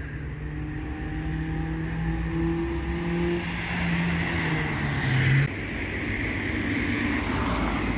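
A motor vehicle approaching on the street, its steady engine tone and tyre hiss growing louder, the pitch dipping just as it passes before the sound cuts off abruptly about five and a half seconds in. Steady street noise follows.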